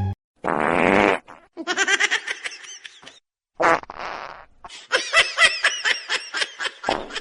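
Short sputtering, fart-like bursts, three in all, alternating with two runs of a person's laughter.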